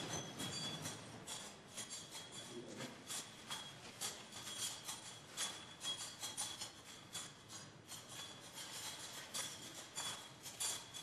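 Faint music with a light jingling percussion beat, about two to three strokes a second.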